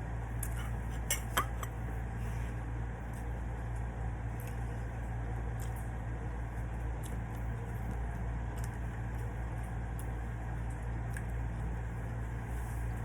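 A few light clicks and clinks of eating utensils against dishes, the sharpest about a second in, over a steady low hum.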